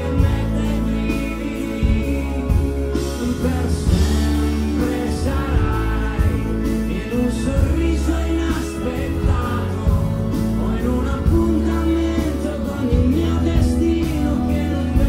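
Live pop-rock band playing, with a male lead singer singing into a microphone over bass and drums keeping a steady beat.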